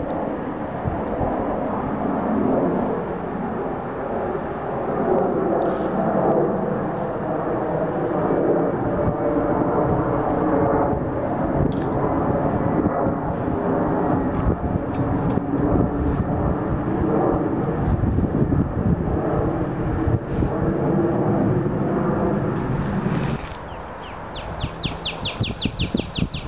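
Embraer 175 regional jet climbing out overhead after takeoff, a steady loud engine roar with a humming drone in it. Near the end the roar cuts off abruptly, leaving a quieter background with a quick, high ticking trill.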